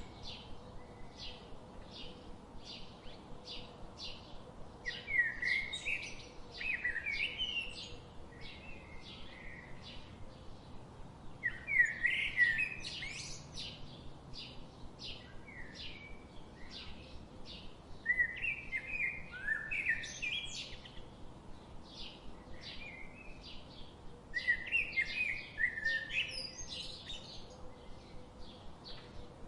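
Forest songbirds singing: one bird repeats a short high note about twice a second throughout, while another sings louder, more complex phrases of two to three seconds, four times.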